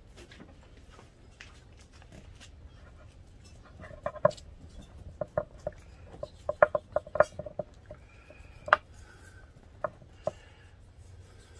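Knife work on raw beef ribs on a cutting board: irregular light taps and clicks, mostly from a few seconds in to near the end.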